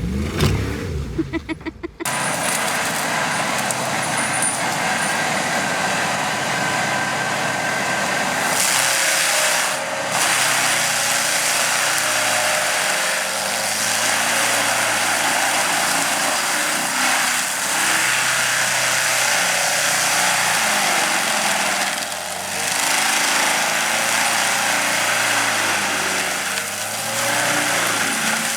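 Engine running continuously with a dense mechanical noise, its pitch rising and falling repeatedly; a different, louder sound occupies the first two seconds before it starts.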